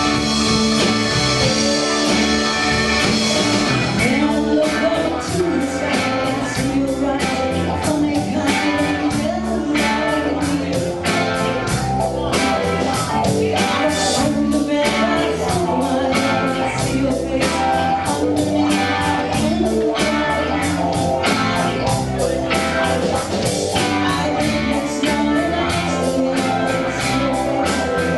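Rock music with electric guitar and a sung vocal, a steady drum beat coming in about four seconds in.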